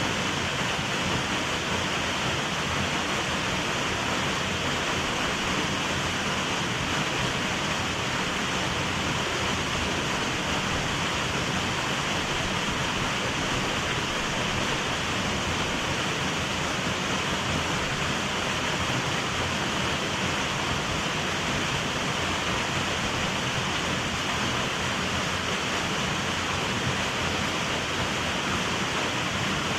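Steady, even rush of water from a small waterfall.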